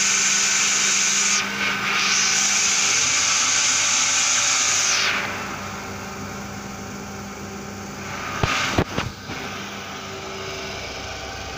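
Milking machine vacuum pump unit running steadily, with a loud hiss over it for about the first five seconds that then drops away to a quieter running hum. A few sharp knocks come about eight and a half seconds in.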